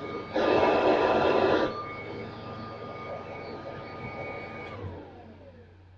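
Kirby Heritage II Legend 2HD upright vacuum running with a steady high whine over an airy rush, much louder for about a second and a half near the start. A little under five seconds in it is switched off and the whine slides down as the motor spins down.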